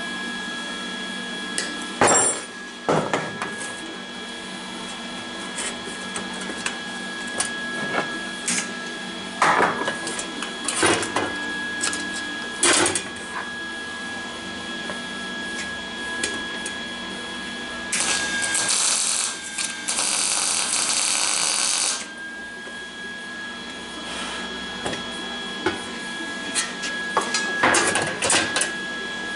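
Steel parts knocking and clanking as they are handled, over a steady electrical hum. About two-thirds of the way through comes a roughly four-second burst of crackling welding arc, a short weld bead being laid.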